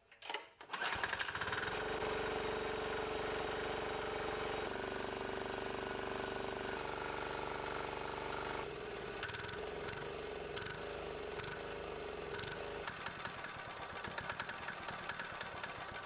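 Small single-cylinder air-cooled diesel engine running steadily, its fuel line just bled of air. The engine sound comes in about a second in, and its tone shifts a few times along the way.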